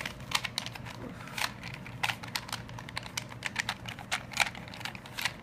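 Rubik's cube layers being turned in quick succession: an irregular run of sharp plastic clicks and clacks, several a second, as the last moves of the solve are made.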